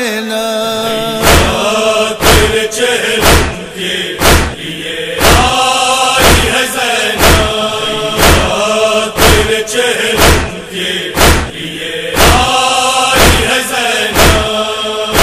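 Nauha refrain: a chorus chanting a held, wordless melody over a steady rhythm of sharp beats, roughly one a second, the matam chest-beating that keeps time in an anjuman's nauha.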